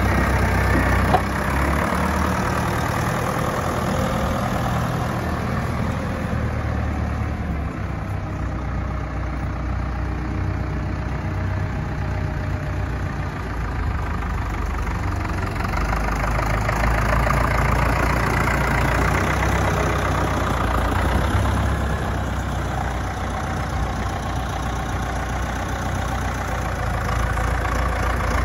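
1975 Ford 7000 tractor's four-cylinder diesel engine running steadily as the tractor is driven around, fading a little and then growing louder again near the end. A single short click about a second in.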